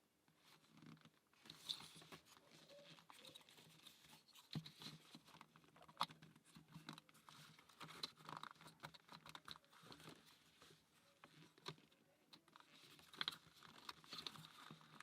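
Faint, scattered clicks and light taps of the wooden parts of a UGears laser-cut plywood combination-lock puzzle being handled and fitted, with soft rustling between them.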